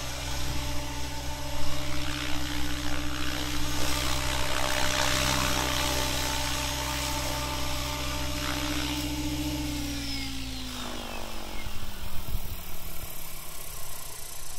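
Goblin 630 electric RC helicopter hovering, its motor and rotor making a steady whine. About ten seconds in, after it sets down, the motor and rotor spool down with a falling pitch.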